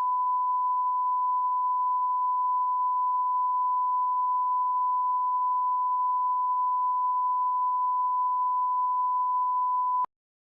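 Broadcast line-up reference tone: one steady, unwavering pure tone that cuts off abruptly near the end, followed by silence.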